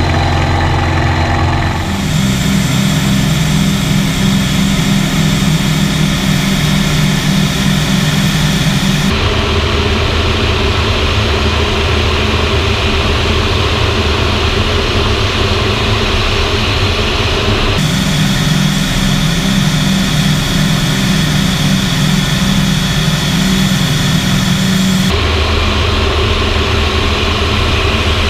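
F4U-4 Corsair's Pratt & Whitney R-2800 radial engine running steadily, heard from inside the cockpit. Its tone switches abruptly several times, as at edits in the footage.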